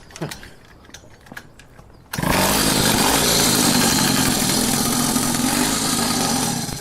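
A small motorcycle engine comes in abruptly about two seconds in and runs loud and steady, then drops away just before the end. Faint clicks of handling come before it.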